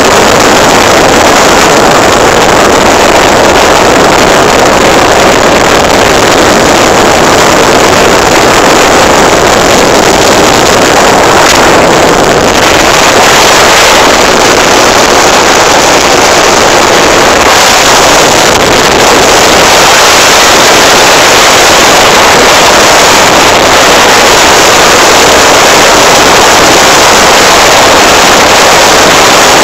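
Motorcycle riding along the road, heard from a phone mounted on it: steady, very loud wind rush on the microphone over the engine running.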